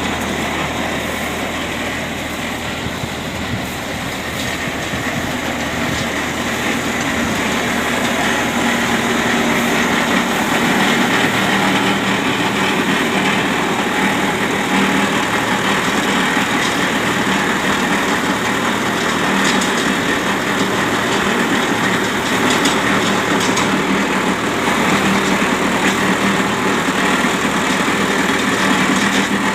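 Tractor engine running steadily with the clattering machinery of a Vikas 235 baler working along with it.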